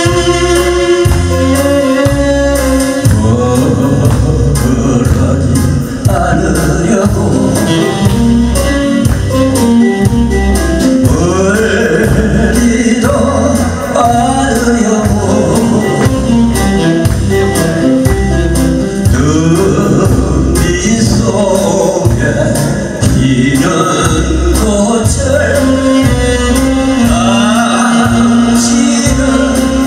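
A man singing a Korean trot song with keyboard, drums and electric guitar accompaniment over a steady beat. The instruments play alone at first and the voice comes in about three seconds in.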